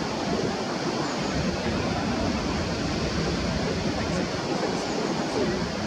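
Steady outdoor rushing noise, even and unbroken, with a low rumble in it and a few faint high ticks about four to five seconds in.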